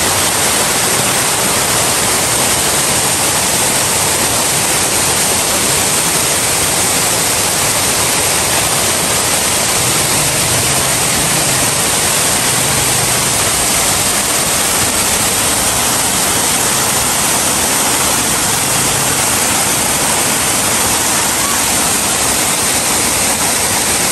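Mountain waterfall pouring down a rock face and spilling over stone-walled terraced steps: a loud, steady rush of falling water.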